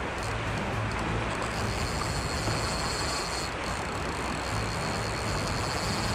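Steady rushing of a river's current, an even noise without breaks, with a low rumble underneath.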